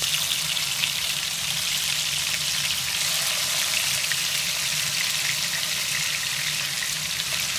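Marinated chicken pieces shallow-frying in hot coconut oil, a steady sizzle with fine crackling.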